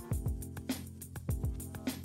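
Intro jingle music with a steady drum beat: a deep kick thump about every 0.6 seconds, with crisp percussion and held notes over it.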